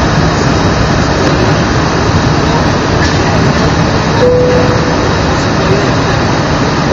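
Steady jet engine and airflow noise inside the cabin of an Airbus A319 airliner, with a brief steady tone about four seconds in and again near the end.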